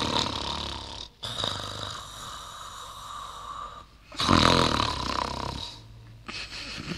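A person snoring in slow breaths, the loudest snore coming about four seconds in.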